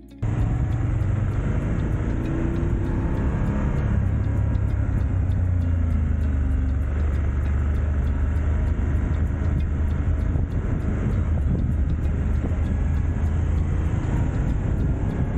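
Motorcycle engine running steadily while riding at speed, with wind and road noise.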